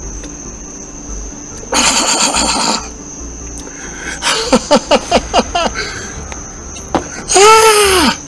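A man gasping and crying out in pain from the burn of Da Bomb hot sauce. First comes a rasping, forceful exhale, then a quick run of about six short gasping cries, and near the end one loud, drawn-out pained cry. A steady high trill of crickets runs underneath.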